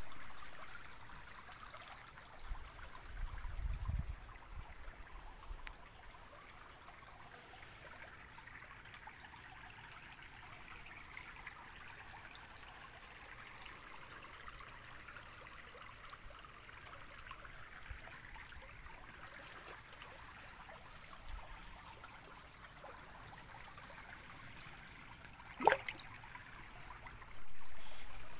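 Shallow stony stream trickling steadily over stones, with a brief low rumble of wind on the phone's microphone a few seconds in. A single sharp click comes near the end, and the water turns suddenly louder just before the end.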